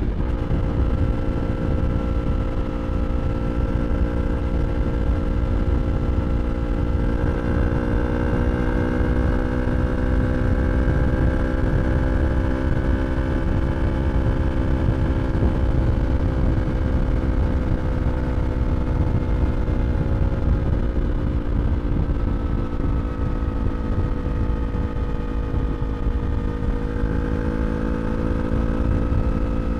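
2023 Yamaha R3's parallel-twin engine through an Akrapovič slip-on exhaust, held at fairly steady cruising revs with the pitch drifting gently up and down, over a heavy low rumble.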